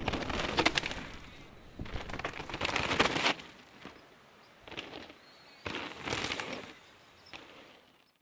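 Downhill mountain bike tyres rushing over a dirt trail with sharp rattling clicks from the bike, coming in four or five noisy surges of a second or so each; the sound cuts off just before the end.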